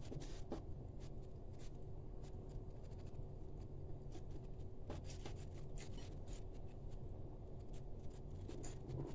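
Eating sounds: fingers mixing rice and food on a plate, with chewing, heard as a scatter of small soft clicks over a low steady hum.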